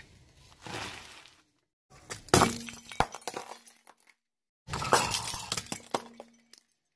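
Glass shattering in two bursts about two and a half seconds apart. Each burst is a loud crack followed by a run of crunching and tinkling fragments, with a low steady hum under both.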